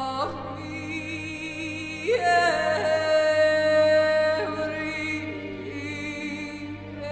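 Slow background music: a melody of long held notes with vibrato. About two seconds in, a louder note slides up and is held for about two seconds before the music eases back.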